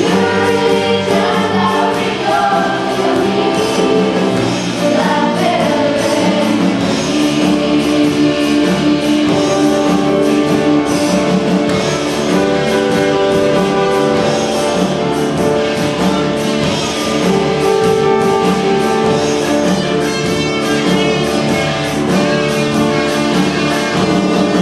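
Music with singing over instruments, held notes running on without a break.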